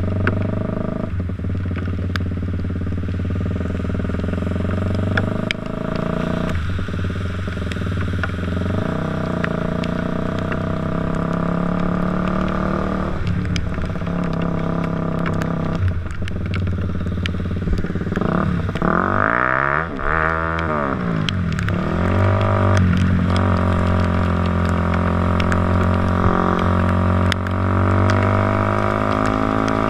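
Motorcycle engine running while riding. Its pitch holds steady for stretches and shifts several times with throttle and gear changes, and it sweeps sharply down and back up about twenty seconds in.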